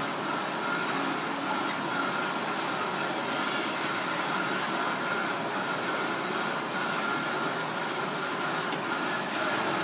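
Steady mechanical background noise: an even hiss and hum with a faint high whine.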